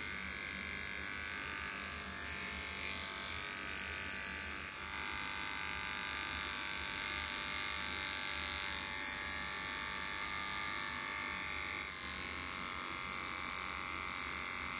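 ZOWAEL corded electric pet hair clipper running steadily as its blade trims the fur around a dog's muzzle, with a couple of brief dips in level partway through.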